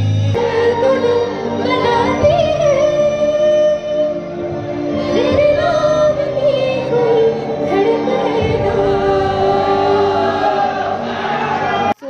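A woman singing a slow song into a microphone over backing music, with long held notes.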